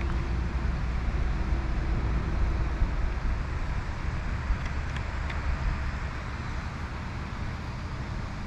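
Wind buffeting the microphone outdoors: a steady low rumble with an even hiss over it, and a couple of faint clicks about five seconds in.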